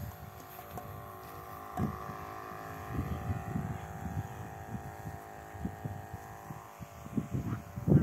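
Steady hum of a backpack sprayer's small pump as it sprays a fine mist, with wind buffeting the microphone in uneven gusts.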